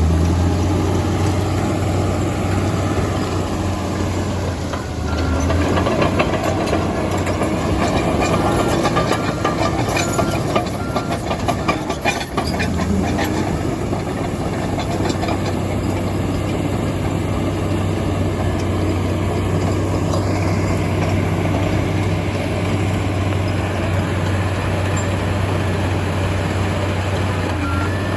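Komatsu D85EX crawler dozer's diesel engine running steadily under work, with the clanking and rattling of its steel tracks and running gear, busiest about a third of the way in.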